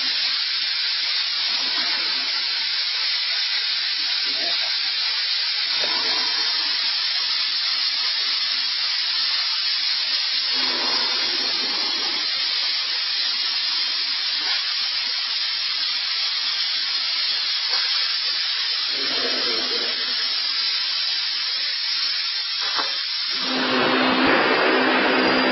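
1500 W vertical LED fog machine jetting fog with a steady hiss. A low hum comes in now and then, and near the end the blast grows louder and fuller.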